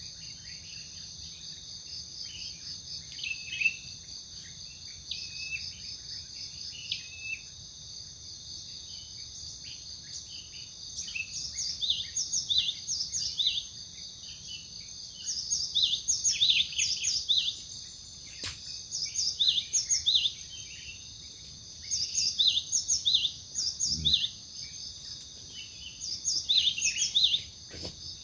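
Steady high-pitched insect drone in forest, with a bird calling over it from about a third of the way in, in repeated phrases of three or four quick notes every couple of seconds. A single faint sharp click sounds about two-thirds through.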